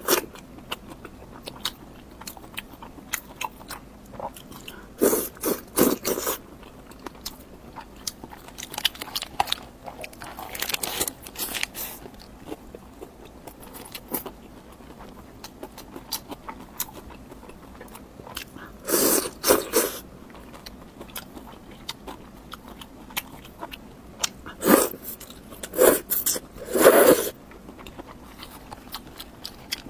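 Close-miked eating: biting and chewing with frequent small clicks and crunches, and several louder spells of crunching.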